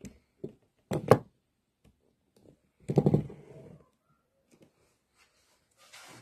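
Intermittent handling noise as a phone camera is moved about: a few short knocks and rustles, the loudest about a second in and about three seconds in.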